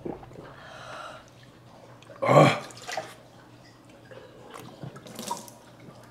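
Two people gulping down a drink and swallowing, with a loud throaty burst about two seconds in and a shorter one just before three seconds.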